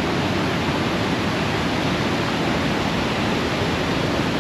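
Waterfall rushing: the steady, unbroken noise of falling water at the upper tier of the falls.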